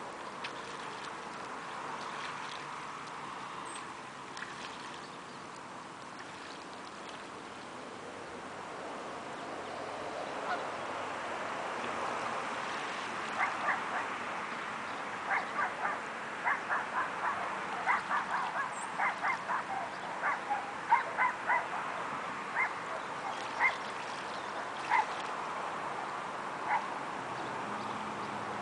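Ducks and geese calling on the water: a steady background hiss at first, then from about halfway a run of short, sharp honks and quacks, several a second, thinning out near the end.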